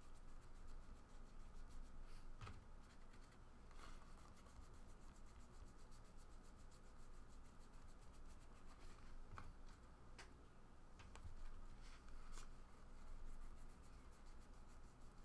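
Faint rubbing of cardboard trading cards sliding off a stack as they are flipped through by hand, with a few soft, scattered ticks.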